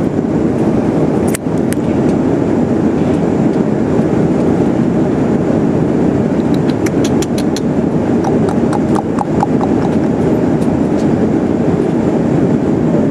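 Steady airliner cabin noise, the engines and airflow heard from inside the cabin as a constant rush. A quick run of about half a dozen light clicks comes about seven seconds in, and a fainter run follows around nine seconds.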